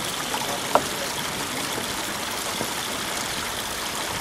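Water pouring steadily from a plastic pipe outlet into a channel, with one sharp click a little under a second in.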